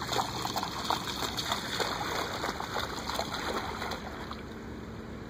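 A dog wading and bounding through shallow water, her legs splashing the water up with each stride; the splashing eases off about four seconds in.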